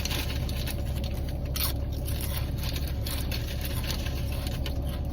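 Steady low hum of a car cabin with the engine running, with a few faint scrapes and clicks from eating over it.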